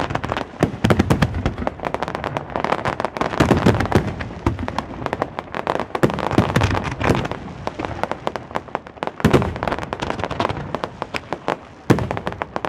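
Fireworks display: a dense, continuous barrage of bangs and crackling from bursting aerial shells, with one sharp, loud bang near the end.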